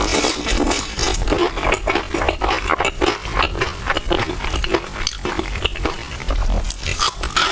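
Close-miked eating: chewing and mouth smacks, with a utensil scraping against a bowl, in a rapid, irregular run of short clicks.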